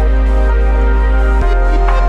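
Background music: sustained chords over a deep bass note, changing to a new chord about one and a half seconds in.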